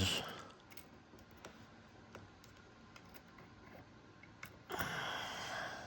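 Faint, scattered small clicks and ticks of tiny metal lock parts being handled, as pins are worked back into a Mul-T-Lock Junior plug. Near the end comes a short breathy noise lasting about a second.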